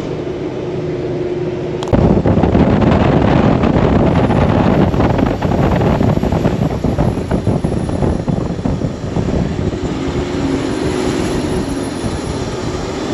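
Cummins diesel engine of a Peterbilt 389 dump truck heard by its chrome exhaust stacks: steady road noise jumps suddenly about two seconds in to a loud, rough engine and exhaust sound, which eases back to a lower steady running sound near the end.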